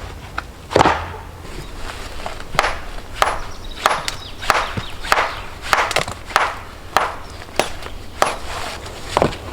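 Wood being chopped with a hand tool: one loud strike near the start, then a steady run of about a dozen sharp blows, roughly one every 0.6 seconds.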